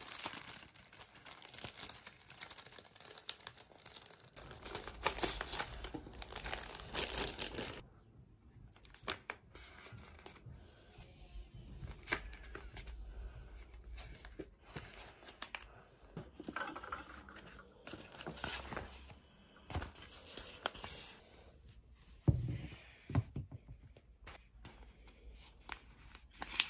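Packaging being crinkled and torn open by hand, densest for the first several seconds, then scattered handling clicks and rustles with a thump near the end.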